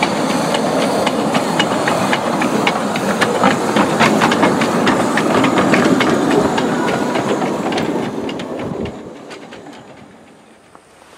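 A 15-inch-gauge steam locomotive hissing loudly as it moves off, with a quick, irregular clicking over the hiss; the sound fades out about eight seconds in.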